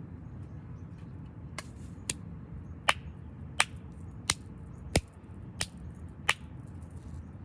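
A run of eight sharp clicks at a fairly even pace, about two-thirds of a second apart, over a steady low background hum.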